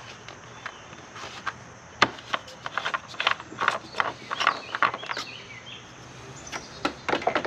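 Irregular clicks and knocks of tools and parts being handled, clustered from about two seconds in and again near the end, over a steady background of insects chirping.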